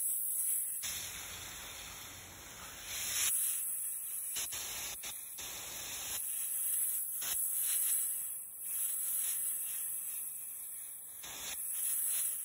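A fine water spray hissing onto a row of pea plants and the soil as they are watered. The spray swells and drops in strength several times as it is moved.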